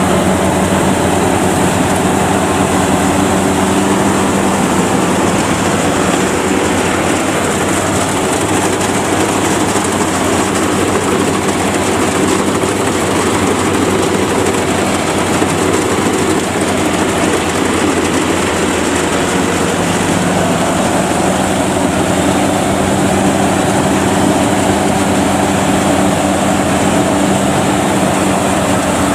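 World WOD102Plus rice combine harvester running at work: its engine drones steadily along with the clatter of the cutting header and threshing gear as it cuts and threshes rice. The steady hum strengthens again about two-thirds of the way in.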